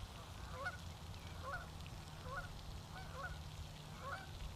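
Faint, repeated short calls from a bird, about two a second, each rising and bending in pitch, over a low rumble.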